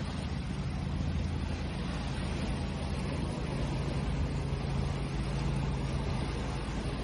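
Ocean waves washing in a continuous, even rush of surf, with a low steady hum underneath.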